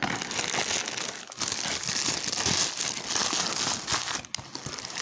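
Parcel packaging being handled and unwrapped, crinkling and rustling continuously with brief pauses about a second in and near the end.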